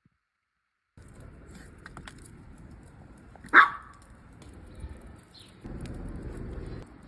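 A chihuahua barking once, briefly, about halfway through, over low background noise that grows louder for about a second near the end.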